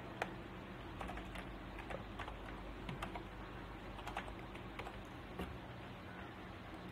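Computer keyboard typing: irregular keystroke clicks with short pauses between them.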